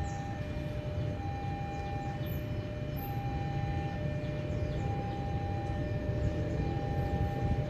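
An electronic warning alarm sounding two alternating tones, high then low, each held about a second and repeating steadily over a low rumble. Small birds chirp faintly.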